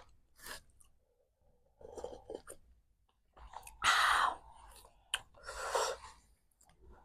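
Close-miked chewing of momos, with wet mouth clicks, broken twice by loud, sharp breaths about four and six seconds in, a reaction to the very spicy chili.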